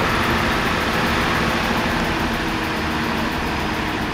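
Diesel engine of a T-150 wheeled tractor-loader running steadily as it drives off with a bucket of asphalt, fading slightly as it pulls away, with street traffic around it.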